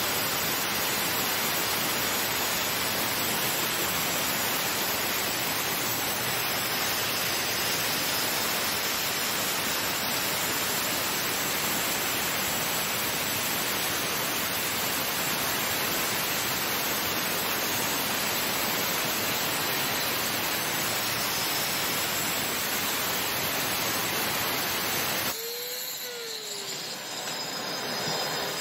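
Hand angle grinder with a diamond turbo blade cutting a slot into a concrete floor, a vacuum drawing the dust through a hose on the blade guard: a steady, even rush of noise. About 25 seconds in the grinder stops and the vacuum runs on alone, quieter.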